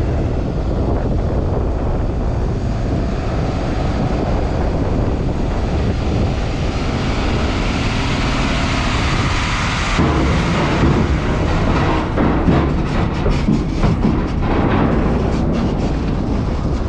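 Loaded heavy goods truck rolling down a steel ferry ramp, its engine and tyre noise rising as it nears, with wind buffeting the microphone. After it passes there is a run of knocks and clatter as wheels cross the ramp's metal plates.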